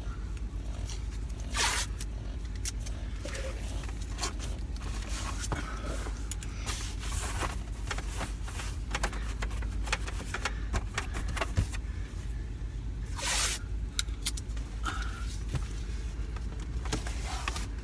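Hands at work fitting and sealing a portable air conditioner into the back of a van: scattered clicks, knocks and scrapes, with two short louder rasps, over a steady low rumble.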